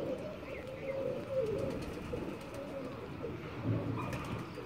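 Domestic pigeons cooing, low wavering coos repeating throughout.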